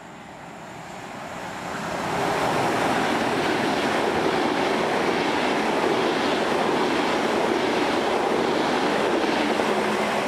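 ICE 2 high-speed train passing along the platform: a rush of wheels on rail and moving air that swells over the first couple of seconds as it nears, holds loud and steady while the coaches go by, and begins to fade near the end as it draws away.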